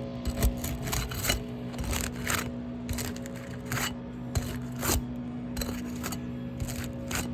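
Short, irregular scraping strokes on weathered asphalt roof shingles, about one or two a second, as the shingles are worked loose for removal. A steady low hum runs underneath.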